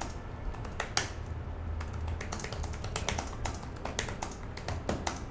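Typing on a laptop keyboard: irregular key clicks with one louder tap about a second in, over a steady low hum.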